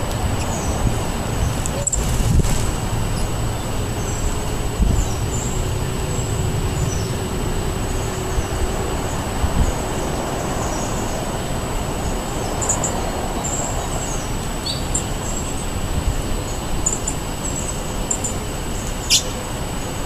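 Small songbirds giving short high chirps now and then over a steady low rumble of road traffic, with one sharp click near the end.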